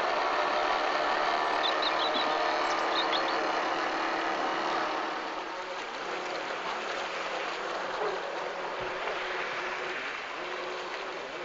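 Radio-controlled model boat under way on open water: a steady motor whine over the rush of water, louder for the first half and easing a little about halfway through.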